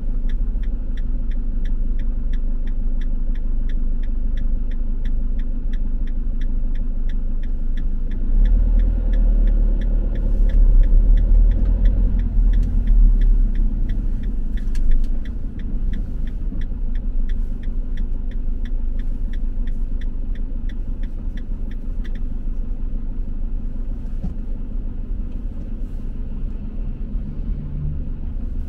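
Vehicle engine and road rumble heard from inside the cab while driving. A turn indicator ticks steadily, about twice a second, until it stops about three-quarters of the way through. The rumble grows louder for a few seconds around a third of the way in.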